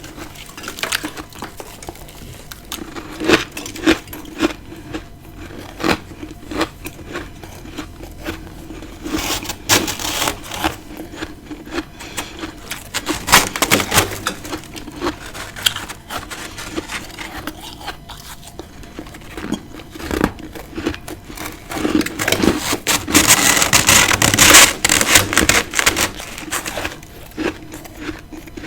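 Close-miked biting and chewing of freezer frost, crisp crackling crunches. The crunches come in scattered bites, with a denser, louder stretch of crunching about two-thirds of the way through.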